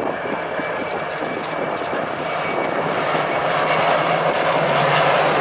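Propeller-driven piston-engined aircraft flying over with a steady low engine hum, growing steadily louder as they approach.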